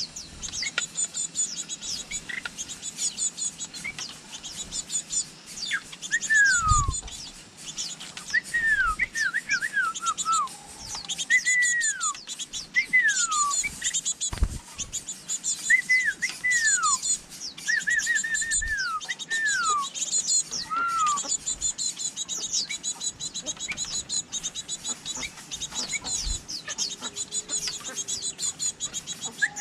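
Birds chirping: a dense, high twittering, with louder whistled calls that fall in pitch repeating every second or two. A few dull low thumps come in between.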